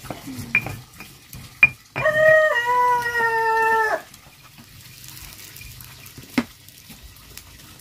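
A drawn-out animal call of about two seconds, held on one pitch, stepping down partway and falling off at the end. A few sharp knocks come before and after it, from knife chopping on a wooden board and a stone mortar and pestle.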